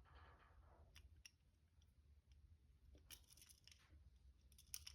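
Faint metallic clicks and scrapes of a lock pick working inside a handcuff lock, a few scattered ticks between stretches of near silence.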